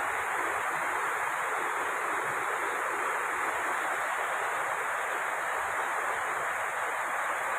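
Rain falling steadily on a corrugated metal roof, heard from underneath it: an even hiss with no let-up.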